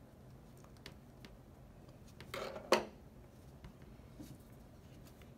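Faint ticks and handling noise of hands and a small screwdriver working inside an opened MacBook Air. A short scrape ends in one sharp click a little under three seconds in.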